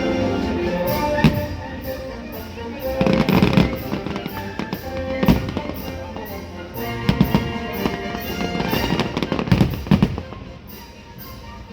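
Fireworks bursting in a string of sharp bangs and crackles, in clusters every couple of seconds, over the show's orchestral music.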